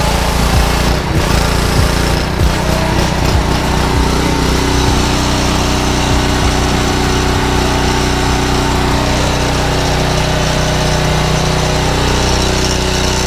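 Honda GC190 187cc single-cylinder engine of a gas pressure washer running on choke while it warms up after its first start, slightly uneven for the first few seconds, then steady.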